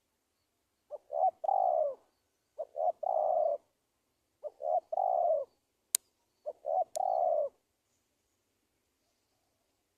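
Spotted dove (tekukur) cooing four times, about every two seconds, each call two short notes followed by a long, slightly falling coo. Two sharp clicks sound near the last call.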